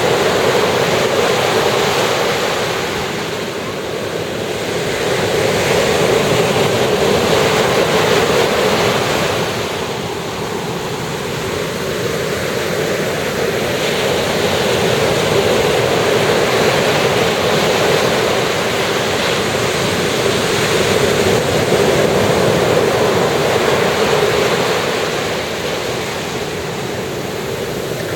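Ocean surf washing onto a beach: a continuous rushing wash that swells and eases as waves break and run up the sand, with lulls every several seconds.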